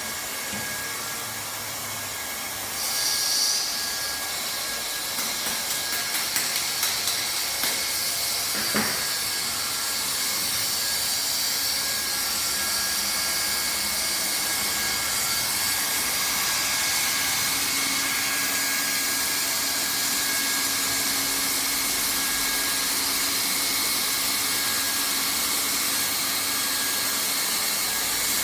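Handheld hot-air plastic welding gun running steadily, its fan blowing hot air with a constant hiss. A few light clicks come in the first several seconds, one sharper about nine seconds in.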